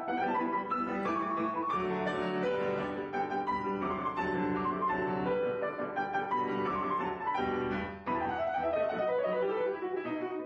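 Solo piano playing a lively classical piece, with quick running passages of notes.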